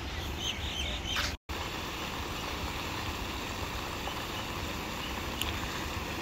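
Steady splashing hiss of a lake aerator fountain spraying, with a few faint bird chirps near the start. The sound drops out for a split second about a second and a half in.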